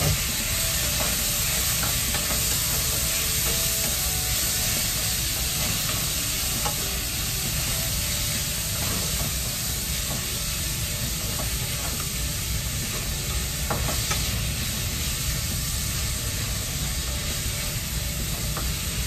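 Fresh chopped tomatoes and garlic sizzling in hot oil in a pan while a wooden spatula stirs them, with a few light taps and scrapes of the spatula against the pan. The sizzle runs steadily throughout.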